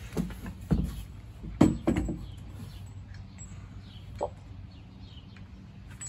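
Several knocks and thumps in the first two seconds from a hollow plastic RV waste tote being handled and set down on concrete, then a quieter stretch with faint bird chirps.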